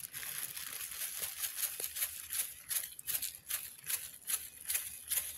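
Thin plastic bag crinkling in a quick rhythmic series of rustles, about three a second, as ground red chili powder is shaken out of it.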